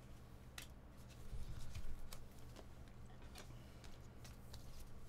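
Faint, scattered clicks and flicks of a stack of trading cards being thumbed through and squared in the hands, over a low steady hum.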